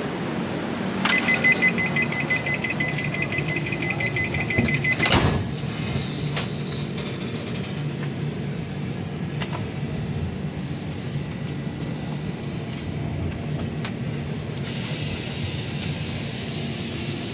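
Steady running noise and low hum of a moving passenger train heard from inside a coach. For about four seconds near the start a rapid electronic beeping sounds, then it cuts off sharply.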